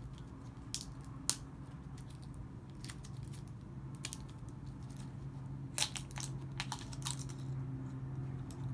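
Plastic wrapper of a Lucas Muecas candy pack being handled and opened: scattered crinkles and sharp clicks, thickest about six seconds in, over a steady low hum.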